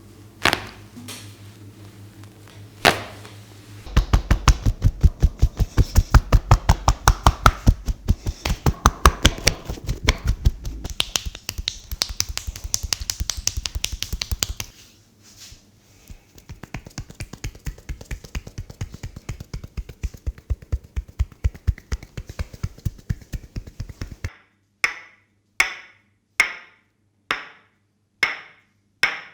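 Hands tapping rhythmically on a person's body in a percussive massage, about five or six strikes a second, loudest in the first half and softer after about 15 s. Near the end they give way to single sharp slaps about every three-quarters of a second.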